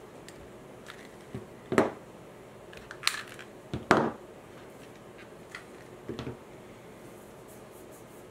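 Metal spring clamps being squeezed open, pulled off a glued grip and set down on a cutting mat: a few sharp clacks, the loudest about two and four seconds in, a smaller one about six seconds in.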